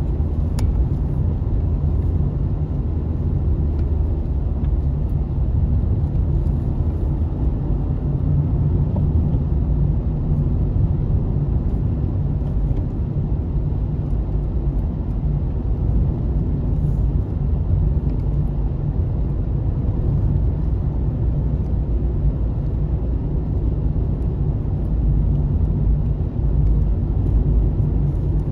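Car driving along a road: steady low engine and tyre rumble.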